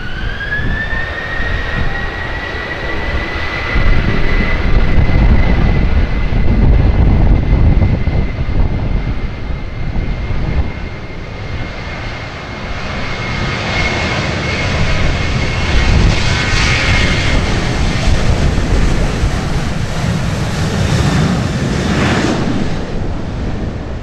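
Boeing 737-800's CFM56-7B jet engines spooling up to takeoff thrust: a whine rises in pitch over the first second or two, then holds steady over a loud rumble as the jet accelerates down the runway. Gusts of wind buffet the microphone.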